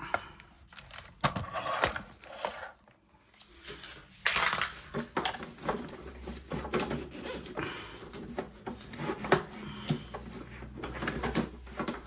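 Irregular plastic clicks, knocks and rustles as hands unhook the tabs of a refrigerator's plastic condenser fan shroud and handle the fan motor, with a short quiet pause a few seconds in.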